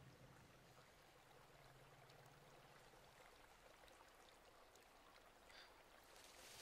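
Near silence: faint forest ambience with a low hum that fades out about halfway, and a brief soft rustle near the end.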